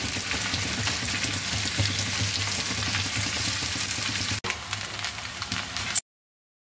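Hot oil tempering sizzling with a steady hiss as a steel ladle mixes it into cooked rice in a steel pot, over a low hum. The sound stops abruptly about six seconds in.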